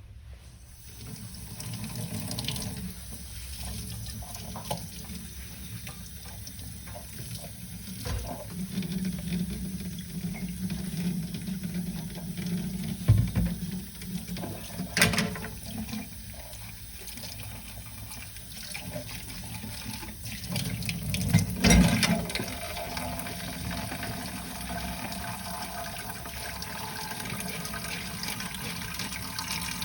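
Kitchen tap running into a sink while dishes are washed by hand, with a few sharp knocks of dishes against the sink.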